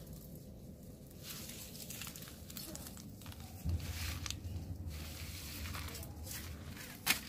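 Rustling and crunching in dry grass and garden plants, in short uneven bursts, with a low rumble setting in about halfway and a sharp click near the end.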